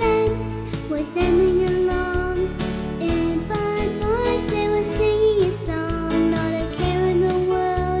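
Children's song music: a melody line that slides between notes over bass and chords.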